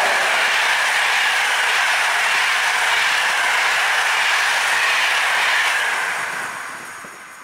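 Passenger train coaches passing close by at speed: steady wheel-on-rail rolling noise that fades away from about six seconds in as the last coach goes past.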